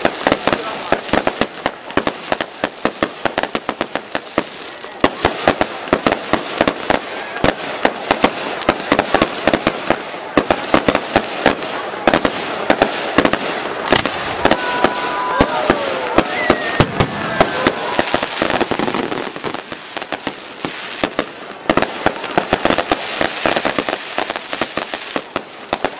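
Fireworks display going off without pause: many sharp bangs and pops, several a second, over a continuous crackling hiss that swells to its fullest a little past the middle.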